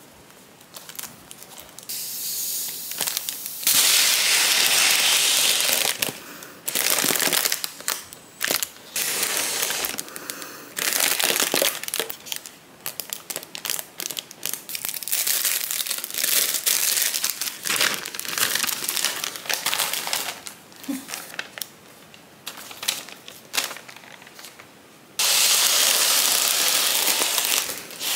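Breath blown through a straw into foil balloons: long, breathy hisses as they fill, with crinkling of the foil between blows. The longest blows come a few seconds in and again near the end.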